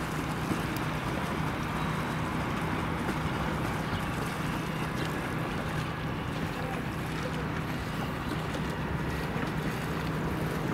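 A boat moving on the water: a steady rush of water and wind with a low, even hum underneath.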